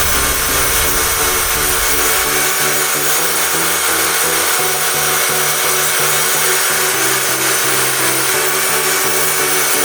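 Background music with a bass line that steps from note to note, over a steady hiss.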